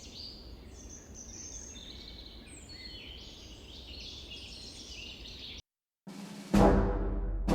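Birds chirping and calling over a low steady outdoor rumble; it cuts off suddenly about five and a half seconds in. After a brief silence, orchestral music comes in loudly near the end with a timpani hit.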